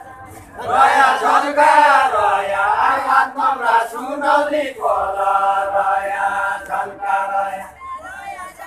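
A group of voices singing a deuda folk song in unison. A chanted line starts about half a second in, and the group holds one long note from about five seconds to about seven and a half.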